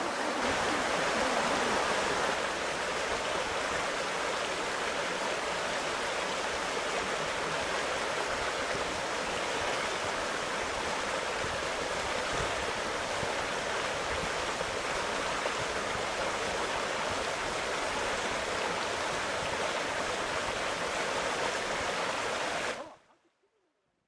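Mountain stream water running over rocks, a steady rush of noise that cuts off to silence near the end.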